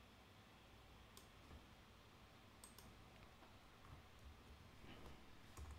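A few faint computer mouse clicks over near-silent room tone.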